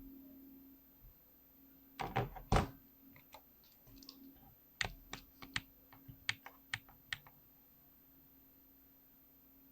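Keys of a 65% keyboard being typed on: a quick cluster of heavier key strokes about two seconds in, then about a dozen single clicks a few tenths of a second apart, stopping a little past halfway.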